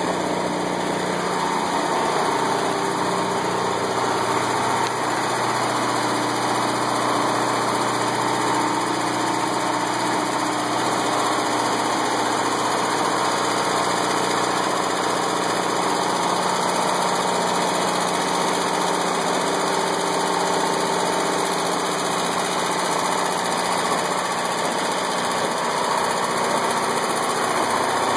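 Onan JC 12.5 kW engine-driven generator set running steadily under load, powering the house.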